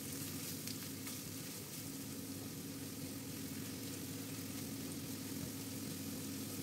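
Chopped onion and garlic sautéing in oil in a frying pan, sizzling faintly and steadily while stirred with a spatula as they soften.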